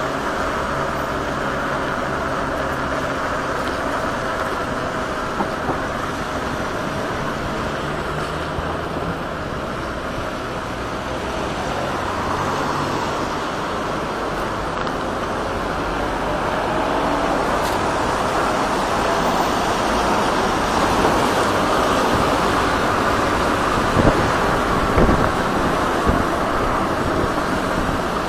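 Street traffic noise with wind on the microphone during a city ride on an electric scooter. A faint pitched whine rises about two thirds of the way in, and there are a couple of sharp knocks near the end.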